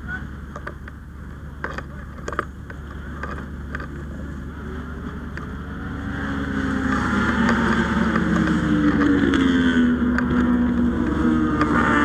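A large engine running steadily, rising in pitch and getting louder about halfway through, like an engine being revved up under load. A few sharp clicks and knocks come in the first few seconds.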